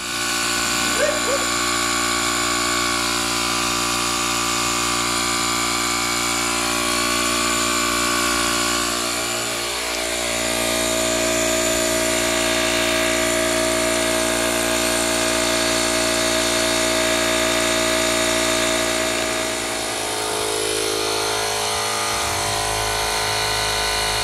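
Fanttik X8 cordless tire inflator's compressor running under load as it pumps a nearly flat car tire up from about 5 PSI, a steady loud motor drone with a high whine, reading about 85 dB on a sound meter. Its tone shifts slightly about ten and twenty seconds in.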